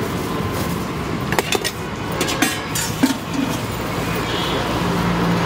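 Steady traffic noise from a nearby road, with a few short, sharp clinks of steel utensils between one and three seconds in.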